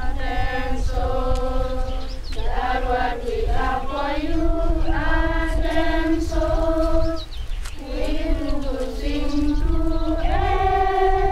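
A group of girls singing together unaccompanied, in phrases of long held notes with short breaks between them, over a low steady rumble.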